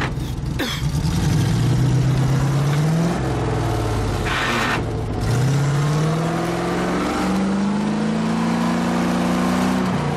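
An off-road 4x4's engine revving under load, its pitch falling and rising several times and climbing slowly near the end. About four seconds in there is a short rush of noise.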